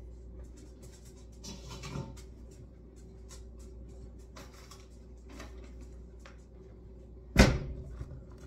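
Kitchen handling sounds from pet food bowls and food packages on a counter: scattered light taps and clatter, then a single sharp knock about seven seconds in, the loudest sound, as something is set down or bumped close by.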